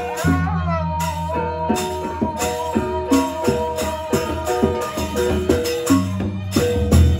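Gendang beleq ensemble playing, led by a bamboo suling flute that slides up into one long held note about a second in and sustains it. Quick cymbal strokes repeat several times a second over a deep, steady low drone.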